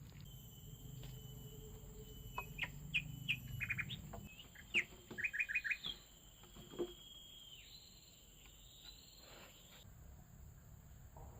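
Forest birds calling, with quick runs of short high chirps in the middle and a long, steady whistled note under them, over a constant high-pitched hum.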